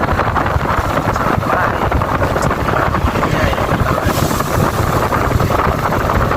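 A Yamaha Vega New motorcycle's engine running while the bike is ridden, mixed with heavy wind buffeting on the microphone. The sound stays steady throughout.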